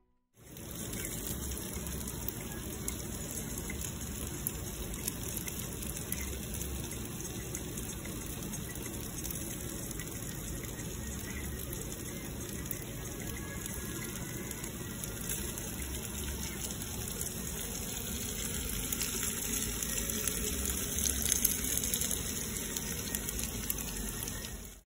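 Sausages and meat sizzling on a barbecue grill: a steady hiss with small crackles, a little louder about three quarters of the way through.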